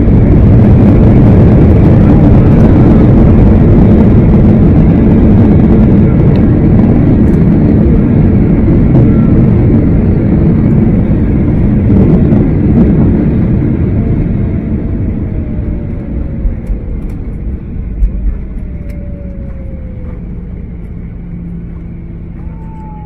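Loud vehicle rumble and rush that slowly fades over about twenty seconds, with a few faint falling whines near the end.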